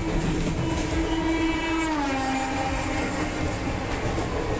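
A train horn sounds for about three seconds, its pitch sliding lower about halfway through. Under it runs the steady rumble of a moving passenger coach, heard from inside its toilet compartment.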